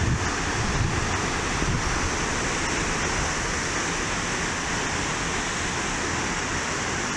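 Ocean surf breaking and washing over rocks at the foot of sea cliffs: a steady rushing wash. Wind rumbles on the microphone in the first second or two.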